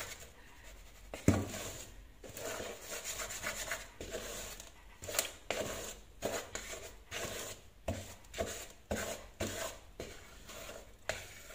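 Wooden spoon stirring a dry flour-and-cocoa mix around a mixing bowl: irregular scraping strokes, about one or two a second, with a single sharp knock about a second in.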